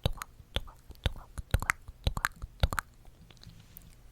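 Crisp close-miked ASMR clicks and taps, about two a second and sometimes in quick pairs, with faint breathy sounds between them and a short lull about three seconds in.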